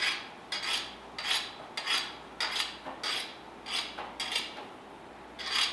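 The back of a petty knife scraping outward along the rim of a metal fluted tart tin, shaving off excess pâte sucrée: short scraping strokes about two a second, with a brief pause and a stronger stroke near the end.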